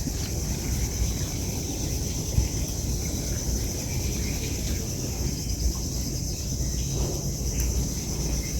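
A steady chorus of insects shrilling without a break, over a continuous low rumble, with a couple of faint ticks.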